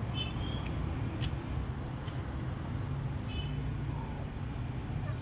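Steady low rumble of vehicles, with a few short, faint high chirps over it.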